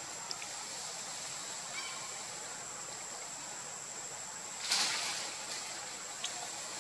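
Outdoor ambience: a steady hiss with a thin, high, unbroken tone above it, a few faint clicks, and a brief rustling burst about five seconds in.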